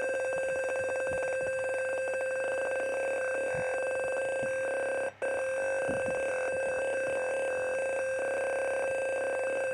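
Fire alarm's electronic buzzer sounding one steady buzzing tone, cut off for a split second about five seconds in.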